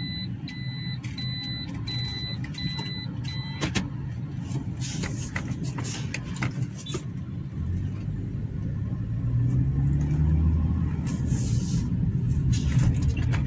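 2015 Toyota Corolla driving on the road: steady engine and road rumble, with a short electronic beep repeating about twice a second for the first few seconds. About two-thirds of the way through, the engine note rises as the car accelerates.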